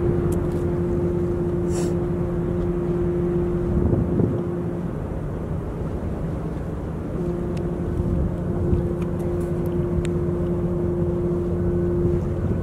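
A cargo ship's whistle sounding two long, steady blasts of about five seconds each, a couple of seconds apart, over a low rumble. They are part of three long blasts, the signal for 'thank you' to a tugboat.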